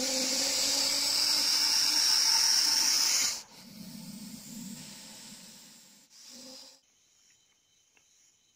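Russell's viper giving a long, loud defensive hiss for about three seconds, then a quieter, lower hiss. This is a warning to keep away. The sound cuts off suddenly about two-thirds of the way through.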